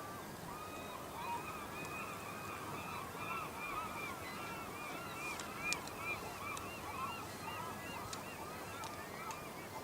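A flock of geese honking, many short calls overlapping without a break, with a few sharp ticks about halfway through.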